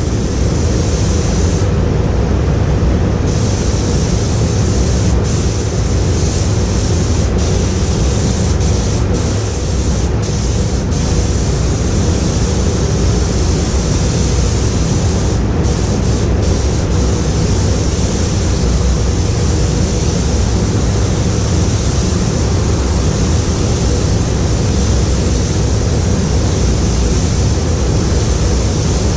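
Steady hiss of a hand-held compressed-air gun worked along a car's body panels, cutting out briefly twice, over the constant low rumble of a paint booth's ventilation.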